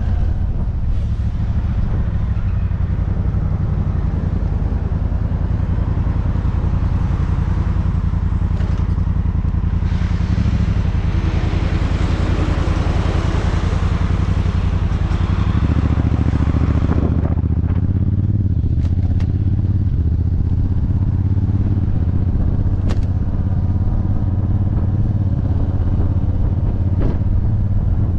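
Honda Africa Twin's parallel-twin engine running, heard close up from the rear luggage box. A broad hiss swells over it a third of the way in and fades a little past halfway, and then the engine note rises as the bike pulls away.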